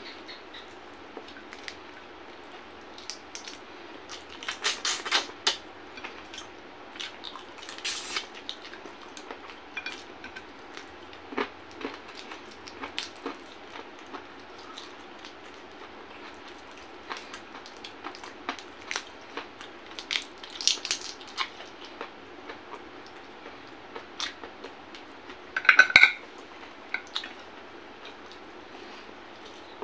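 Eating sounds of a person eating with his hands: chewing and fingers working rice and shrimp on a plate, heard as scattered small clicks and crackles. A louder clatter of dishware comes near the end.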